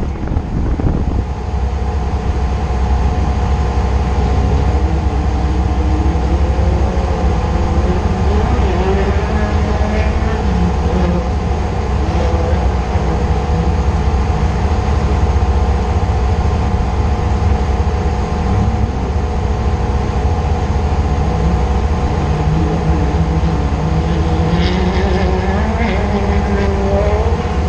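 Off-road race vehicle running hard at speed, its engine pitch rising and falling, over a steady heavy low rumble.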